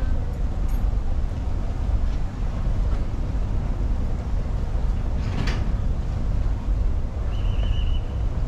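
Boat under way on open water: a steady low rumble of the engine and wind on the microphone. A brief swish comes about halfway through, and a short high tone sounds near the end.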